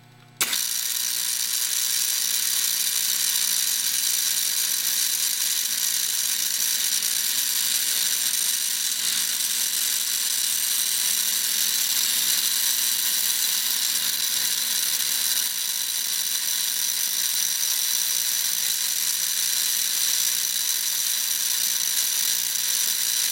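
Lionel cattle car and corral stockyard set switched on: the corral's electric vibrator mechanism buzzes with a steady metallic rattle as it shakes the rubber cattle along, over a low electrical hum. It starts suddenly about half a second in.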